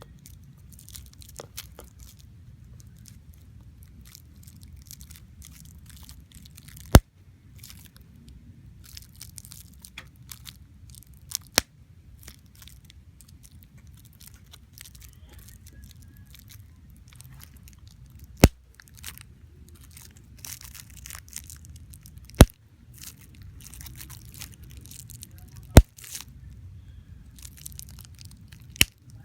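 About six sharp, loud pops a few seconds apart, with crackling and rustling handling noise between them.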